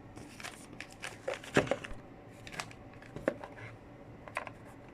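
Packaging of a wireless earbuds set being handled and opened: crinkling and rustling with scattered clicks and knocks, the sharpest about a second and a half in and again just past three seconds.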